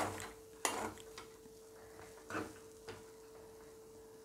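A steel spoon scraping and knocking against a metal pan as dry grated raw banana and coconut is stirred: a handful of short scrapes spread through, over a faint steady hum.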